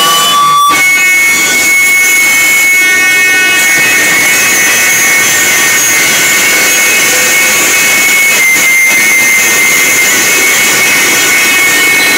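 Loud electronic noise from a live noise performance on floor-set devices and effects units: a dense wall of hiss with steady high whistling tones. There is a brief drop about half a second in, after which a strong high tone takes over.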